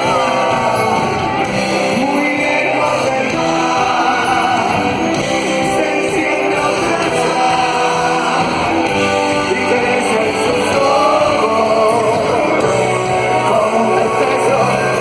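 Rock band playing live, loud and steady: electric guitars, bass and drums in an instrumental passage, with some voice at times.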